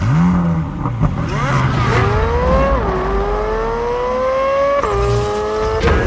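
2023 Chevrolet Corvette Z06's flat-plane-crank V8 accelerating hard, its pitch climbing through the gears with quick upshifts about three and five seconds in.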